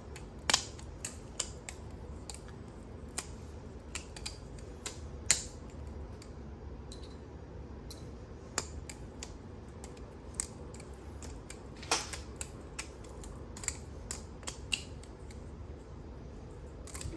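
Squiddy B balisong trainer being flipped: irregular sharp clicks and clacks as the handles swing and strike each other and the blade, with a few louder clacks among lighter ticks.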